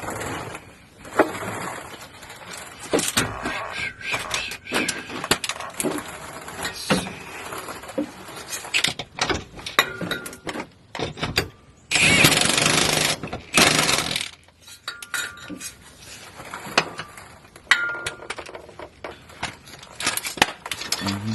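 Impact wrench tightening the mounting bolts of a driveshaft safety loop, with one loud run of about two seconds near the middle, amid scattered clanks and clicks of metal parts and tools.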